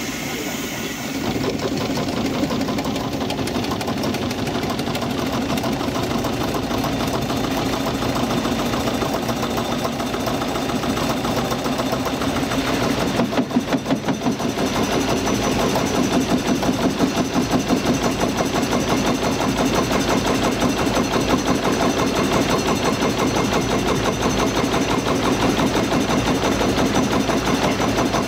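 Small steam launch's steam engine running under way, a fast even beat that steps up a little about a second and a half in.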